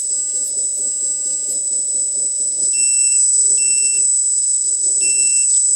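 Hydraulic pump of a 1/14 LESU RC hook-lift truck running as the hook arm lifts the container, with a steady high-pitched whine over a low rough churning. Three short high beeps come a few seconds in, about half a second apart and then once more near the end.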